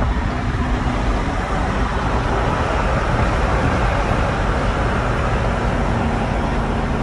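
Steady road and wind noise from a vehicle driving along, a heavy low rumble under an even rushing hiss.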